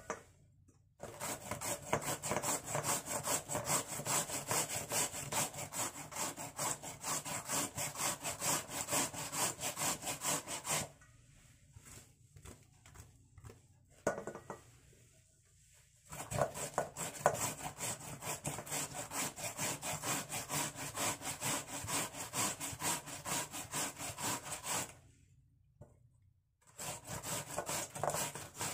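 White radish (daikon) being grated by hand on a grater: rapid, even rasping strokes. The grating stops for a few seconds about eleven seconds in, resumes about five seconds later, and pauses again briefly near the end.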